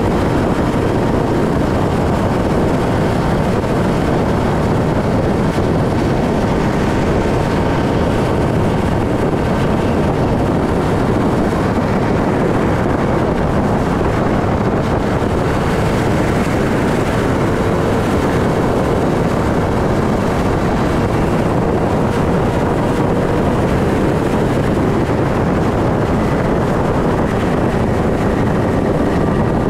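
Motorcycle riding at a steady speed: the engine's faint steady hum sits under loud, even wind and road noise on the microphone.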